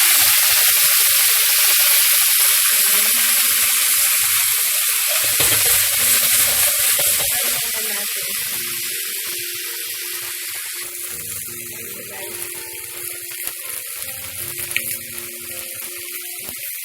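Whole marinated chicken frying in hot cooking oil in a pan: a loud, steady sizzle that slowly eases off.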